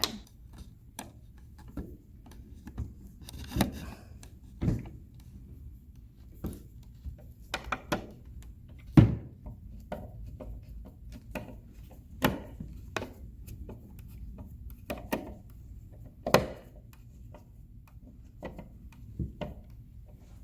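Plastic toy dollhouse panels being handled and screwed together: irregular clicks, knocks and rubbing, with one louder knock about nine seconds in.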